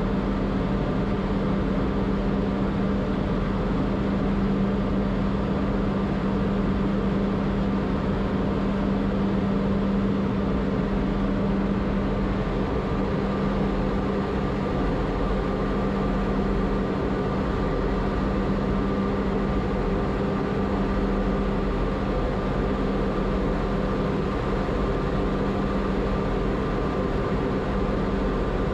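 Steady drone of a large ship's engines and machinery heard on board, a constant low hum with a few fixed higher tones over an even rushing noise.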